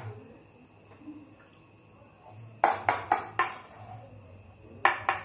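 Metal spoon clinking against a stainless steel bowl as butter is scraped out. A quick run of four clinks comes about two and a half seconds in, and two more near the end, over a low steady hum.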